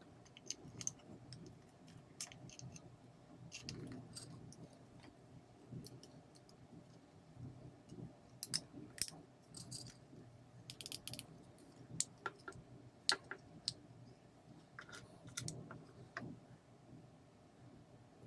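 Scattered light clicks and small rattles of small hard parts being handled, some in quick clusters.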